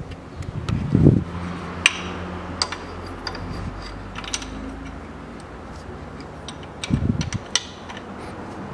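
Hand work with a small tool on a car's gearbox from underneath: scattered light metallic clicks and ticks, with two dull knocks, about a second in and again near seven seconds.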